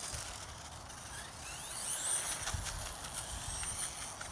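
Electric RC car's motor and gear train whining as the car speeds past on asphalt, over tyre noise. The whine climbs in pitch as the car accelerates and is loudest about two seconds in.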